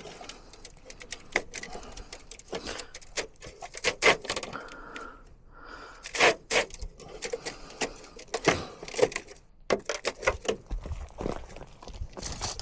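Irregular metal clicks, taps and rattles from handling micro-mesh gutter guard panels and screws while fastening them to the gutter.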